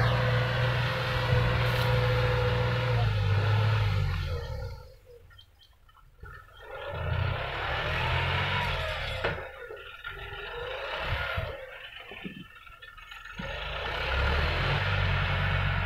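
John Deere 5065E tractor's diesel engine running under load while pulling a seven-disc plough: a steady drone that fades almost away about five seconds in, comes back unevenly, and grows louder again near the end.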